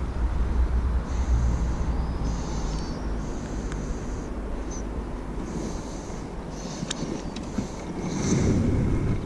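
A low, steady outdoor rumble with light clicks and rustles as a small European perch is unhooked by hand, then a soft splash about eight seconds in as the fish is let back into the river.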